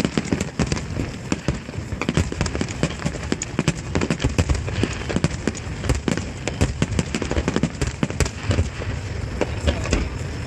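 Aerial fireworks bursting in a dense, rapid barrage: many overlapping bangs and crackles each second with a low rumble, without a break.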